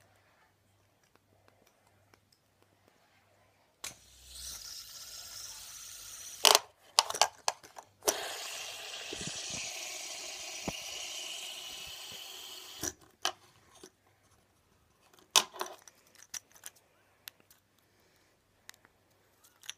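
Light-up fidget spinner whirring steadily as its bearing spins, first briefly about four seconds in, then for about five seconds. Sharp clicks and clacks of the spinner being handled and set down come between and after the spins.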